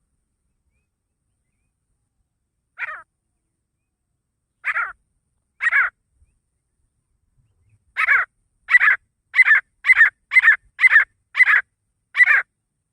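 Male grey francolin (desi teetar) calling. Three short harsh calls come a second or two apart, then a quicker run of eight calls about half a second apart.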